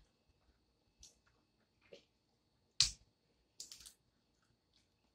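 Boiled peanut shells being snapped open by hand: a few sharp, scattered snaps, the loudest about three seconds in, followed by a quick cluster.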